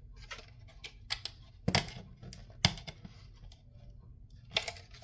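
Scattered clicks and knocks of radio parts being handled during disassembly, with two sharper knocks about two and three seconds in.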